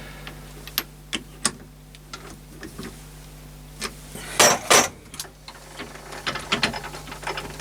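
Scattered metal clicks and knocks of a workpiece being fitted into a lathe chuck and clamped, with two louder knocks about four and a half seconds in and a run of small ticks near the end, over a steady low hum.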